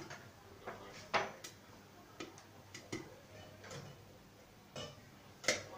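Popcorn kernels popping in a pot on the stove: about ten sharp pops at uneven intervals, the sparse last kernels of a batch that is nearly done.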